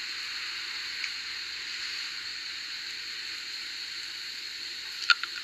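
Steady hiss of background noise, with a few short clicks near the end.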